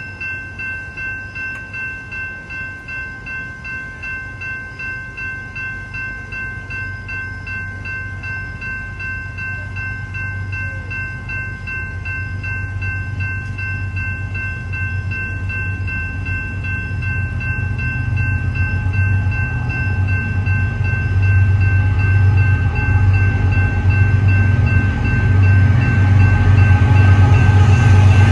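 An electronic railroad crossing bell (GS Type 2 E-Bell) rings with even, rapid strokes. Underneath, the low rumble of an approaching BNSF intermodal train's diesel locomotives grows steadily louder toward the end.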